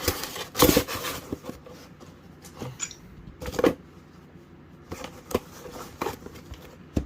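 A few sharp clicks and knocks of a plastic smoke alarm being handled, the loudest cluster about half a second in.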